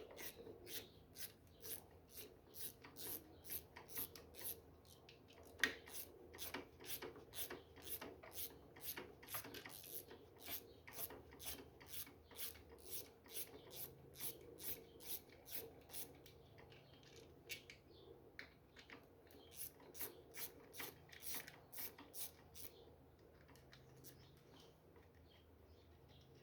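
Faint repeated rasping clicks of a ratchet wrench, in short even strokes about three a second, as bolts are worked loose on a Honda CG 125 Titan's clutch; the strokes thin out and stop near the end.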